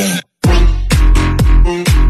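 Electronic dance music. A sung line cuts off, a brief silence follows, and about half a second in the beat drops: deep kick drums falling in pitch, roughly two a second, with sharp ticking percussion over them.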